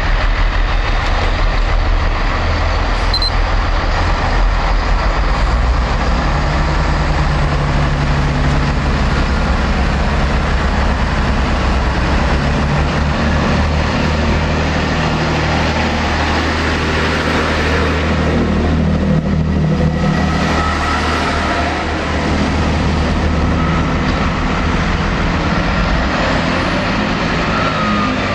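Chiltern Railways Class 165 diesel multiple units under power, the underfloor diesel engines running loud and steady as a unit pulls away and passes close by. The engine note steps up and down several times.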